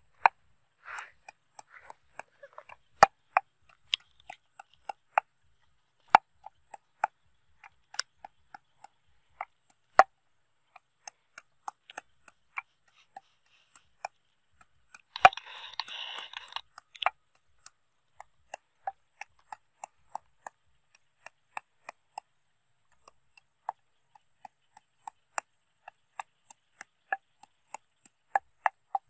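Wooden pestle pounding in a clay mortar: sharp knocks at an uneven pace, quickening to about two a second in the last part. A brief rustling hiss about fifteen seconds in.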